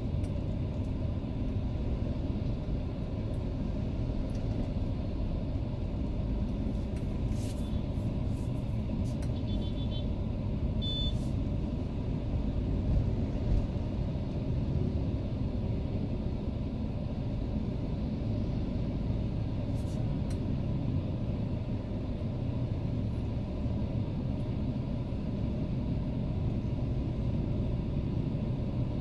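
Steady low rumble of a Mercedes-Benz W210 E320 driving slowly in city traffic, heard from inside the cabin. A few short high beeps and clicks come about ten seconds in, and a couple more clicks about twenty seconds in.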